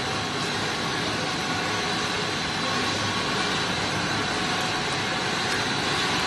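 PET sheet extrusion line running: a steady, even mechanical rush with a faint high whine.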